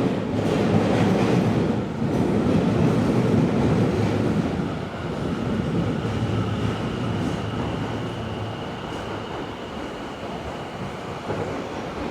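Tobu 70000 series subway train running, heard inside the car, with a loud rumble of wheels and motors that comes in suddenly at the start. A steady high whine joins about five seconds in, and the noise eases off toward the end.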